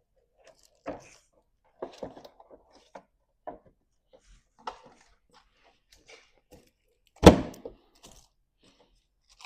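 Scattered plastic clicks and knocks from the turn signal housing being handled and pushed into place on a Chevy Express van, with one loud thunk about seven seconds in.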